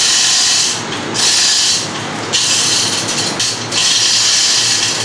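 A hoist lifting a transmitter's input cavity in short jogs: a loud hissing run that starts and stops four times, each run lasting about a second.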